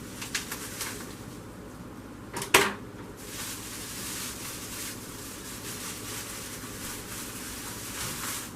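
Bubble wrap and plastic packaging rustling and crinkling as the contents are unwrapped, with light clicks at first and one loud, sharp snap about two and a half seconds in.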